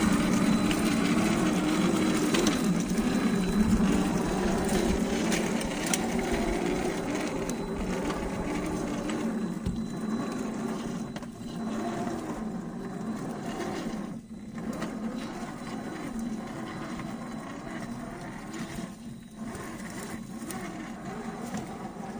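1:10 RC rock crawler running on a brushed 45-turn electric motor, the motor and gear drivetrain whirring as the truck crawls over terrain. The whir wavers with the throttle, grows gradually fainter and cuts out briefly twice in the second half.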